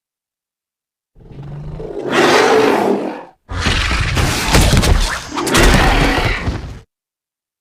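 Sound-designed Sinotyrannus dinosaur roar, heard twice. The first swells up and cuts off after about two seconds; after a brief gap a longer, louder second roar follows, with some crackling clicks partway through, and ends abruptly.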